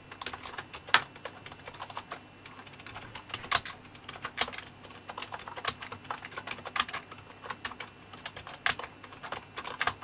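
Mad Catz S.T.R.I.K.E. 7 gaming keyboard typed on at a normal pace: quiet, irregular clicking of its membrane keys, which are built to mimic the feel of a mechanical keyboard.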